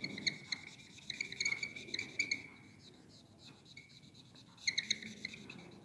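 Marker pen squeaking on a whiteboard while a wedge bond is shaded in with short strokes. It comes in two spells: one over the first two and a half seconds, and a shorter one near the end.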